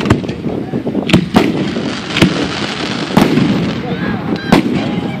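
Aerial fireworks shells bursting close overhead, a sharp bang every second or so.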